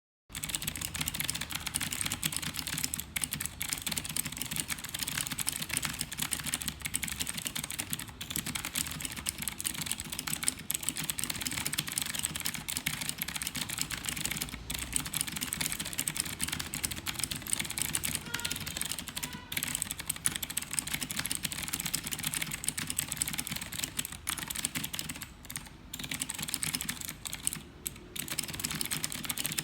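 Fast, continuous typing on an Ajazz AK33 mechanical keyboard with clicky Zorro Blue switches, a dense run of sharp key clicks with a few short pauses near the end.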